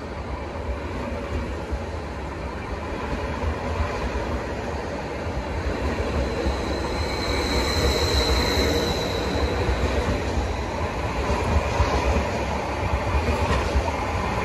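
A train running through the station, its noise slowly growing louder, with a brief high-pitched wheel squeal about halfway through.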